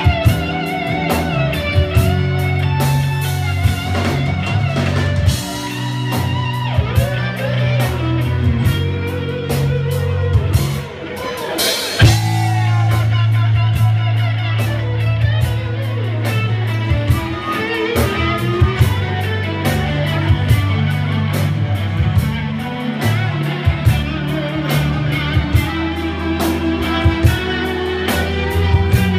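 Live band playing a song with guitar, a steady bass line and drums keeping a regular beat. The band drops back briefly about eleven seconds in, then comes back in with a loud hit.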